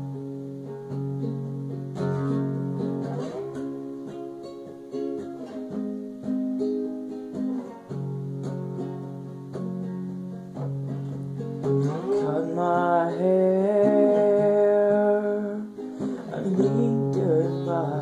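Acoustic guitar strummed and picked in a slow chord progression, the chords ringing and changing every second or two. About twelve seconds in, a wordless vocal line slides up and is held for a few seconds over the chords.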